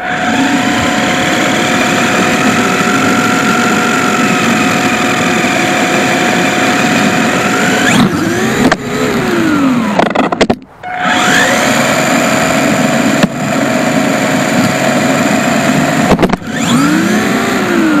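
WLtoys K989 remote-control drift car's small electric motor and gears whining steadily under throttle, picked up close by a camera mounted on the car. The pitch swoops up and down a few times, about halfway and near the end, as the throttle is eased and reapplied, and the sound drops out briefly just past halfway.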